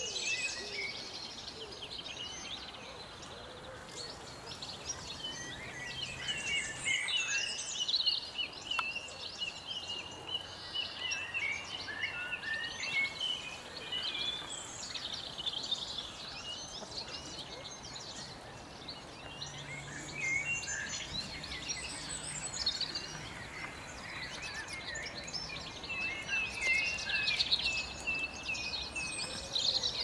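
Small songbirds twittering and chirping almost without pause, in busy runs of quick high notes mixed with a few longer held notes.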